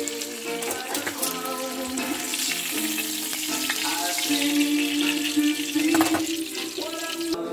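Fish frying in hot oil in a pan, a steady sizzle, with background music playing over it.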